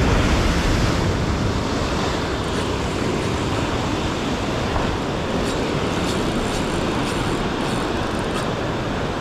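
Big ocean wave surging against a rock jetty, loudest near the start, then a steady rush of surf.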